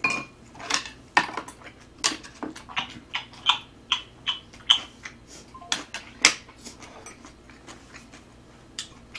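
Close-miked eating sounds: quick wet chewing and lip-smacking on a mouthful of fried rice, mixed with metal chopsticks clicking against the dishes. The clicks and smacks come several times a second.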